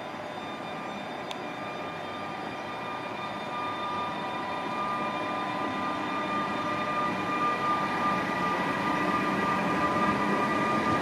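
SBB Re 460 electric locomotive pulling a passenger train past at low speed. Its electrical hum carries several steady tones over the rolling noise and grows louder as it passes.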